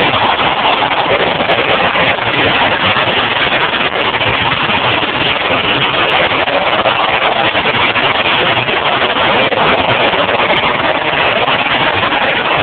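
Demolition derby cars' engines running together in a loud, steady din.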